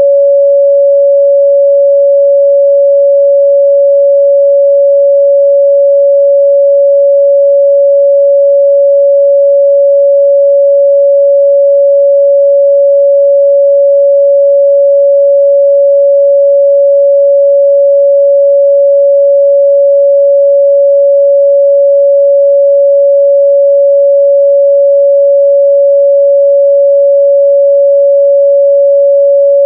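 A steady, loud 562 Hz sine-wave test tone, one pure pitch held without change.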